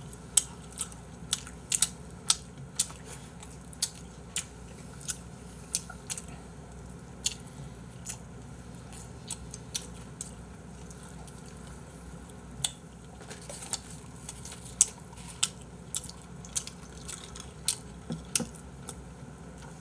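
A person chewing and biting pizza and fried chicken, with many short, sharp clicks and taps scattered irregularly throughout.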